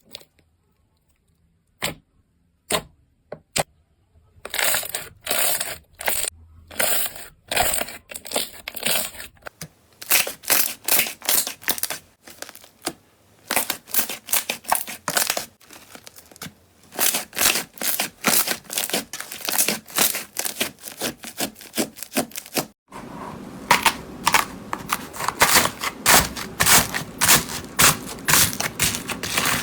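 Slime being handled and squeezed, making sharp crackles, pops and crunching. The crackles are sparse single clicks at first and become rapid and dense after a few seconds. From about two-thirds of the way in they run continuously over a fuller background.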